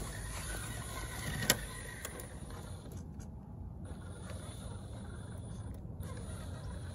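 Small electric motor and gears of an Element Enduro Sendero RC crawler truck running as it crawls over loose sandy dirt, with one sharp click about one and a half seconds in.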